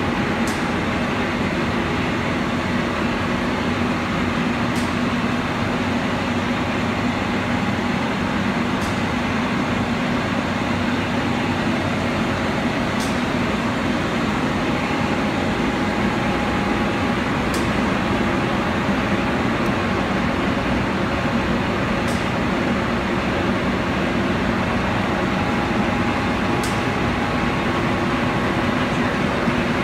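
Bullard Cutmaster vertical turret lathe running under power: a steady hum from its motor and gearing, with a faint high tick about every four and a half seconds.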